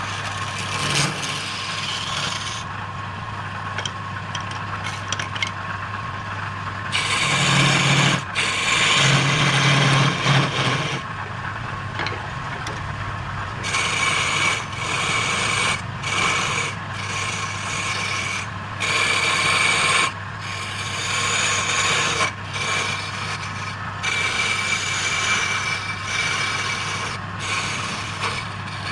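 Wood lathe running with a steady hum while a turning tool scrapes against the spinning wood in repeated passes that start and stop every few seconds.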